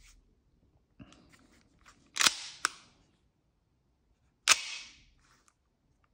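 Tokyo Marui Samurai Edge gas-blowback airsoft pistol, mostly plastic, being worked by hand. Its slide and hammer give a few sharp clicks and snaps. The two loudest come about two and four and a half seconds in, each trailing off briefly.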